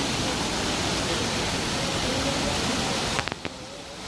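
Steady rushing hiss of fountain jets splashing into a pool, with faint voices of people in the background. About three seconds in, the sound drops away abruptly with a couple of clicks.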